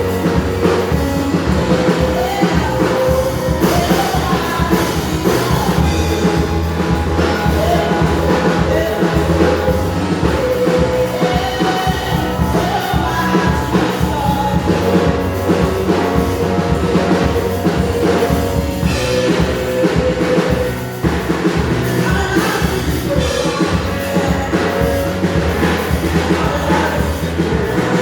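Church worship music from a band with a drum kit keeping a steady beat, and singing over it.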